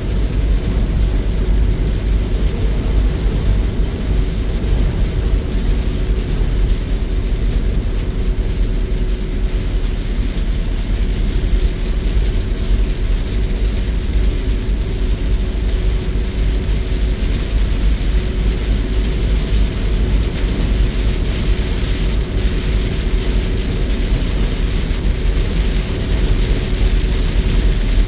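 Steady road noise heard inside a Jeep's cabin at highway speed: a deep rumble from the tyres and engine with a faint steady hum, and rain on the windshield.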